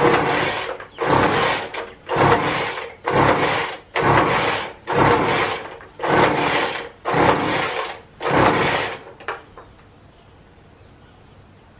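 Pull-start cord of a gas leaf blower being yanked over and over, about once a second, nine pulls in all, each a rasping whir of the recoil starter. The engine does not catch, and the pulling stops about nine seconds in.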